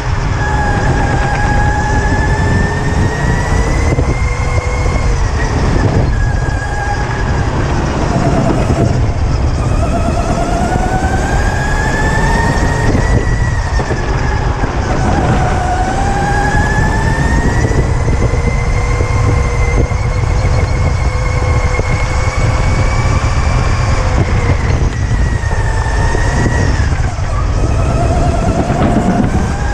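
Electric go-kart motor whining at full drive, its pitch rising and falling again and again as the kart speeds up on the straights and slows into the corners, over a heavy low rumble.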